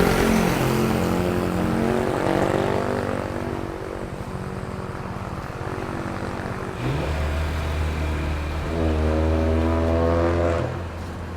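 Motor vehicle engines. One starts loud and falls in pitch over the first few seconds, as a passing vehicle does; then, about seven seconds in, another engine starts up with a steady low hum and revs up, rising in pitch before it drops back near the end.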